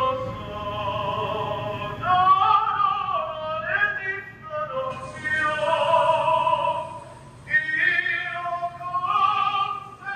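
A tour guide singing long held notes, the voice reverberating around a sea grotto's rock walls.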